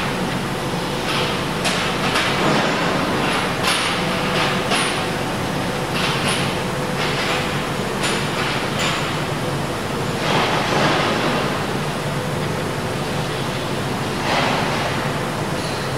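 CLOOS ROMAT 350 welding robot cell running: steady machine noise with a constant hum, broken by repeated short hissing bursts, two longer ones about ten and fourteen seconds in.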